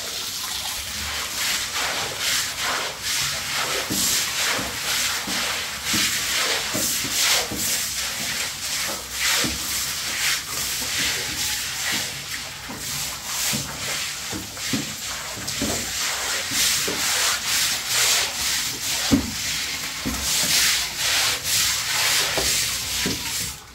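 Stiff-bristled push brooms scrubbing a wet concrete floor in repeated, uneven scraping strokes.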